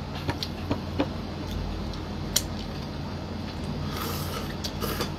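Eating sounds: fingers picking at food in bowls with small clicks and taps of dishes, then mouth sounds as a bite is eaten about four seconds in, over a steady low hum.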